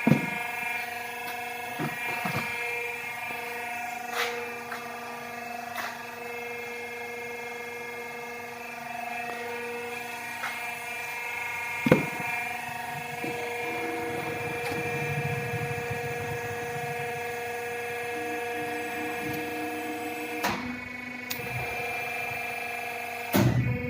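48 mm CNC pipe bending machine running: a steady motor whine made of several tones that shift partway through, with occasional clunks and a sharp knock about twelve seconds in.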